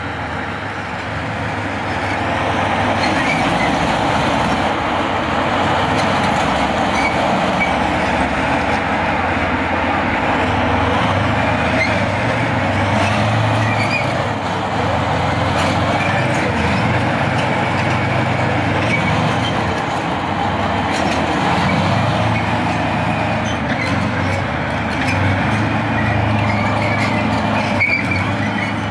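T-72M4 CZ tank's V12 diesel engine running under load as the tank drives off and turns, its steel tracks rattling over concrete. The noise grows about two seconds in as it pulls away.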